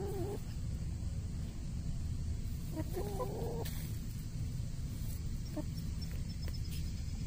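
Chickens foraging, with two drawn-out, wavering low calls: one right at the start and another about three seconds in. A steady low rumble runs underneath.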